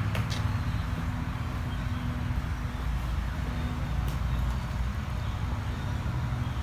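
Steady low background rumble with a faint steady hum, and no distinct events.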